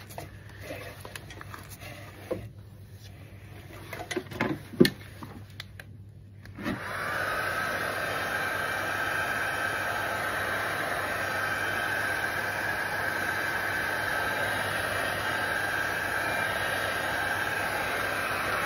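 A corded electric heat gun switched on about seven seconds in: its fan winds up to a steady whine with a rush of air, used to warm a vinyl decal on a car bumper. Before it, a few short knocks and rustles of handling.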